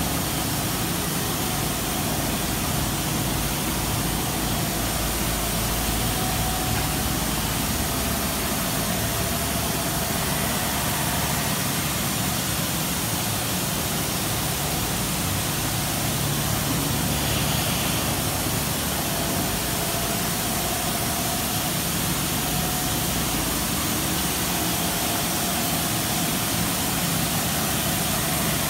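Steady drone of running machinery with a strong even hiss and a faint low hum.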